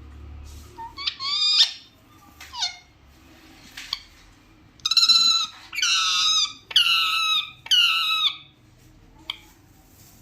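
Small parrot calling in a run of high, squeaky bursts: a few short calls early on, then four longer warbling calls in quick succession about halfway through.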